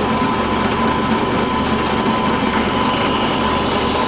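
Electric drill running steadily, boring a vertical hinge-pin hole in cherry wood.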